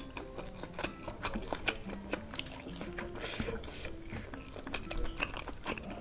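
Metal spoon and fork clinking and scraping against a ceramic bowl while cutting a large baso aci meatball in broth, with mouth chewing sounds, many short clicks in quick succession. Soft background music plays underneath.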